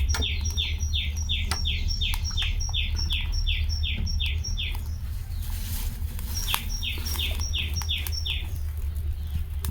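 A small bird calling in a fast series of short, falling chirps, about three a second. It breaks off about halfway and starts again. A steady low hum and a few clicks run underneath.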